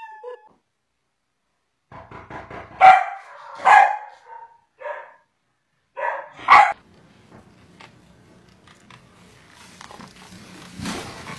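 Dog barking: a few short, loud barks, the strongest about three and four seconds in and again about six and a half seconds in, with smaller yelps between.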